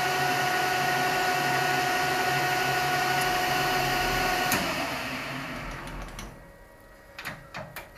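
Metal lathe running with a steady whine while it takes a light facing cut on a small part held in a collet. About four and a half seconds in there is a click, and the lathe spins down to a stop. A few light knocks of handling follow near the end.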